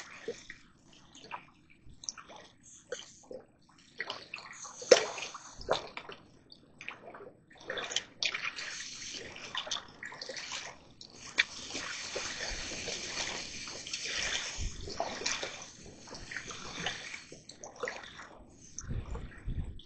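Water sloshing and splashing in irregular bursts, with a steadier hiss of moving water through the middle stretch.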